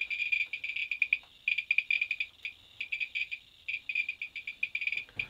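Handheld Geiger counter clicking fast and irregularly, a dense chatter of short high-pitched chirps with a few brief gaps, as it is held to the mine rock. The count rate marks rock that is only mildly radioactive, "not that hot".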